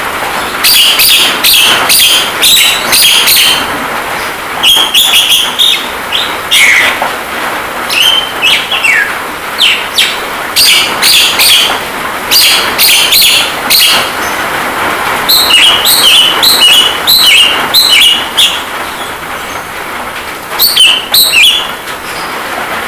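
Javan myna (jalak kebo) chattering: runs of sharp, scratchy chirps and clicks, breaking off for a second or two between runs. Underneath is a steady hiss of rain sound.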